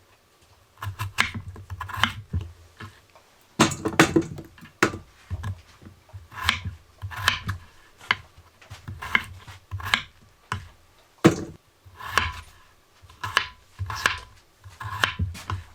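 Knife chopping potatoes on a cutting board: a run of uneven knocks, about one or two a second, with one harder chop about eleven seconds in.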